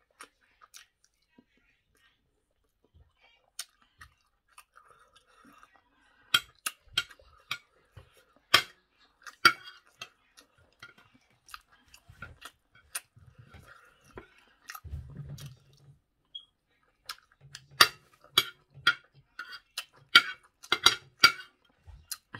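Close-up eating sounds of a person chewing rice and chicken in vegetable sauce: wet mouth smacks and clicks that come in clusters, busiest about a third of the way in and again near the end, with quiet gaps between.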